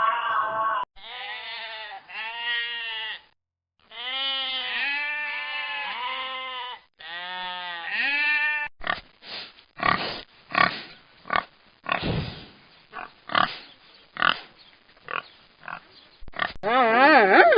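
Domestic pig calls: three drawn-out, pitched squealing calls, then a run of short grunts at about two a second. A different, warbling animal call begins near the end.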